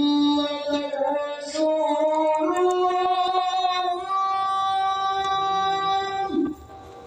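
A solo voice singing long held notes that step upward in pitch, breaking off about six and a half seconds in.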